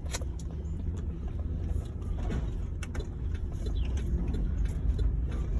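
Car interior road noise: a steady low rumble of engine and tyres heard from inside the moving car's cabin, with a few faint clicks.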